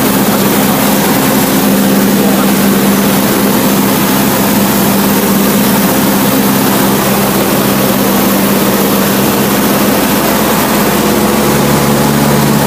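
Cessna 152's four-cylinder Lycoming engine and propeller running steadily in flight, heard loud from inside the small cabin. A lower tone joins near the end.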